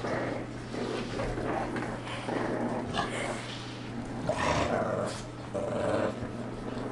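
Puppies growling in play as they tug and chew at a slipper, in short irregular bursts.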